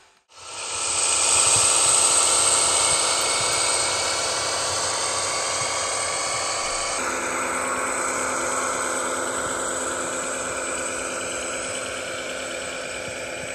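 ESU H0 model of a DB class 216 diesel locomotive running with its sound decoder playing diesel engine sound through its small loudspeaker, with the whine of the model's motor. It fades in just after the start and changes abruptly about halfway through.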